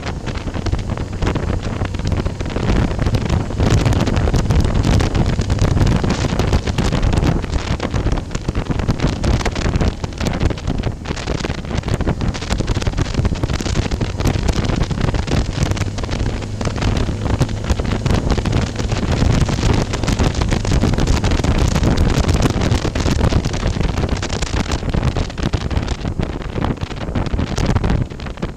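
Wind buffeting hard on the microphone of a camera mounted on a moving motorcycle, over the steady running of the motorcycle's engine.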